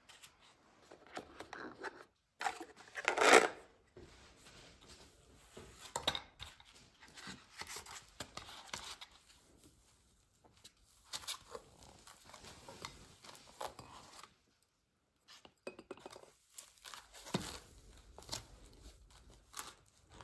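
Clear plastic toy parts being pulled out of foam packing inserts by hand: irregular rustling and scraping of foam against plastic, loudest in one brief scrape about three seconds in.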